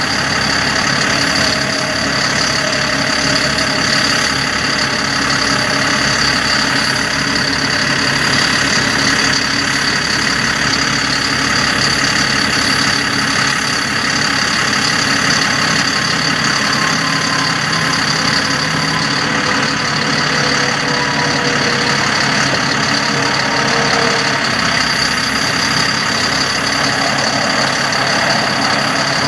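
Engine of a GMC C7500 bucket truck running steadily at idle with the PTO engaged to power the raised aerial boom.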